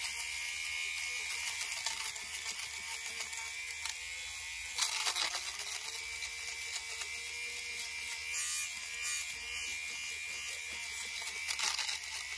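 Agaro electric lint remover running, its small motor spinning the blades with a steady whine as it is rubbed over a jacket's fabric, shaving off the pills. Its pitch dips briefly about five seconds in. A few brief louder rasps come around then and twice later.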